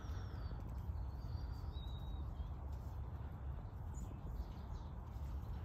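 Outdoor ambience: a low, steady rumble, with a few faint, thin, high bird whistles in the first two seconds or so.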